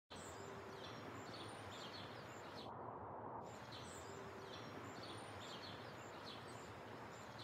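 Faint night-time ambience: a steady low hiss with small high chirps repeating about once or twice a second.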